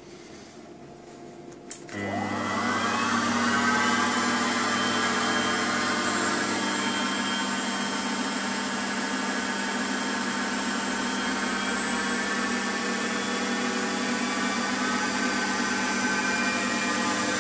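Mini lathe spindle motor starting with a click, its whine rising in pitch for a couple of seconds as the spindle spins up, then running steadily at about a thousand rpm.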